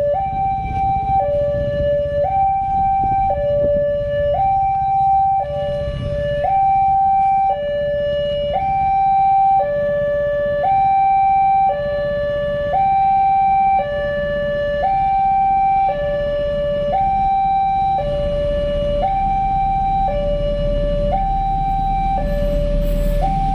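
Railway level-crossing warning alarm sounding, an electronic two-tone signal that alternates between a higher and a lower note about once a second to warn of an approaching train. A low rumble comes in near the end.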